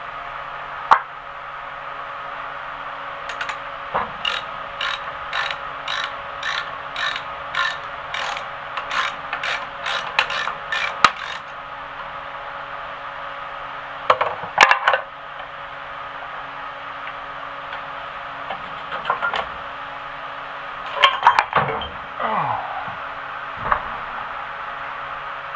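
Hand ratchet wrench clicking in an even run of about two strokes a second as a bolt is worked loose during an engine teardown, followed by a few scattered metallic clinks. A fan hums steadily underneath.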